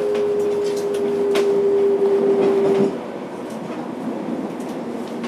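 Fukuoka City Subway 1000 series train running, heard from on board: wheels clicking over rail joints under steady running noise. A steady electric whine from the traction equipment cuts off about three seconds in, and the running noise is quieter after it.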